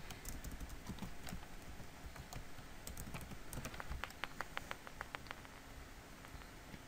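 Computer keyboard typing: scattered key clicks, then a quick run of about ten keystrokes around four to five seconds in.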